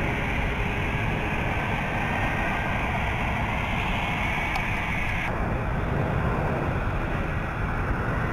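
Jet engines of KC-135 Stratotankers at takeoff power as the aircraft climb away: a loud, steady rushing noise with a faint high whine, the upper hiss cutting off abruptly about five seconds in.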